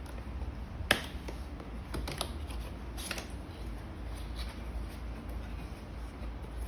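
Handling sounds from unpacking an espresso machine: a sharp click about a second in, then a few lighter clicks and rustles over a low steady rumble.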